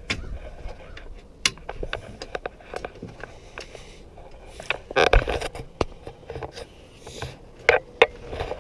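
Scattered clicks, knocks and scrapes of aluminum rack parts and LinQ clip mounts being handled and clipped together, with a louder run of knocks about five seconds in and two sharp knocks near the end.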